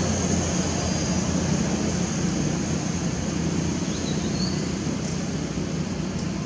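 Steady outdoor background drone: a low hum like distant engine noise, with a constant high thin whine above it and a few faint short chirps about a second in and again about four seconds in.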